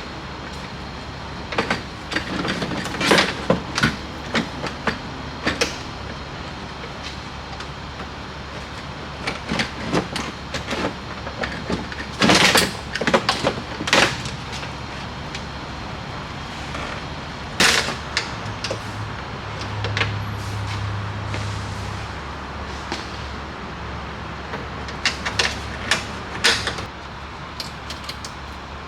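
Scattered clicks, knocks and clatter of a truck's door latch and lock linkage being handled and refitted inside the door, over a steady low hum. A brief low hum sounds about two-thirds of the way in.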